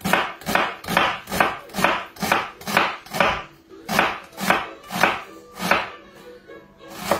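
Chef's knife chopping an onion on a wooden chopping board: steady knocks about two a second, stopping about six seconds in, with one last knock near the end.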